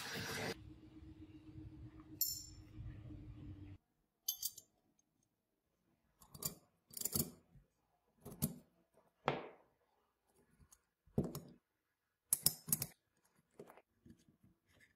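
Small metallic clicks and taps as tweezers pick up and set tiny hex-socket screws into a karambit's handle scales, the screws clinking against the tweezers and the handle about a dozen times at uneven intervals. Before them, for the first few seconds, a low steady hum with a single clink cuts off suddenly.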